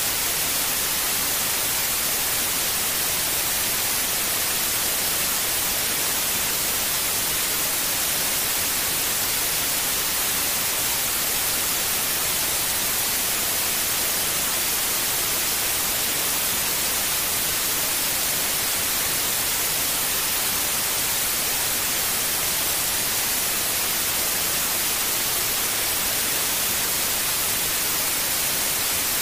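Steady white noise, an even hiss brightest in the high treble, played as a sleep aid for a newborn.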